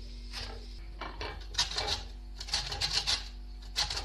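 Citrus peel being rubbed against a hand grater to take off the zest. The scraping comes in quick, rapid strokes, grouped in three runs after about a second.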